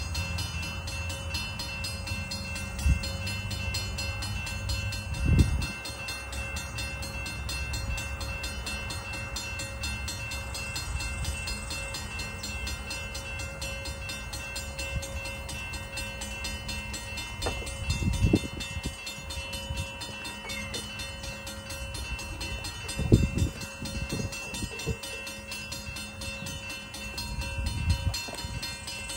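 Scattered metal clunks and knocks from a railroad crossing gate mechanism being worked on by hand, over a steady background hum. The loudest knocks come about five, eighteen and twenty-three seconds in.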